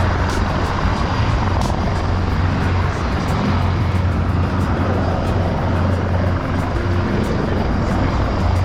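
Aircraft engine noise at an airshow, a steady loud drone with a strong low hum that holds without a break.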